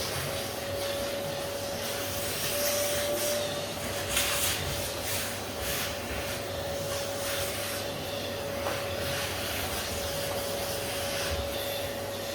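Vacuum cleaner running steadily with a constant whine over its airflow hiss, hoovering sanding dust off a freshly sanded wooden table, with a few brief scrapes or knocks along the way.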